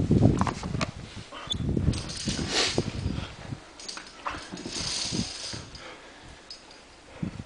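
Scattered clicks and clinks of via ferrata carabiners against the steel cable and iron rungs, with breathy hisses of hard breathing about two seconds in and again around five seconds. A rumble of handling noise on the microphone fades in the first second.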